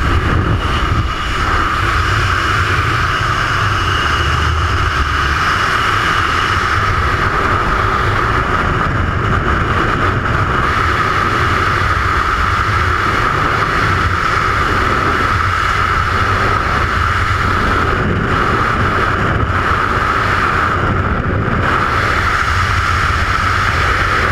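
Freefall wind rushing over a skydiver's camera microphone: a loud, steady roar of air with a constant whistling tone through it.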